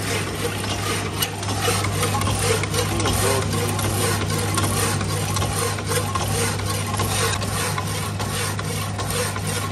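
Power hacksaw cutting through square steel tube: the blade rasps back and forth in a steady rhythm over the constant hum of its electric motor.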